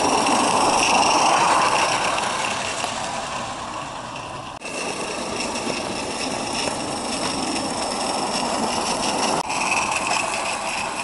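Live-steam model tram engine (Accucraft Glyn Valley Tramway 'Sir Theodore') running on its track, hissing steam with a rattle of running gear. The sound changes abruptly twice.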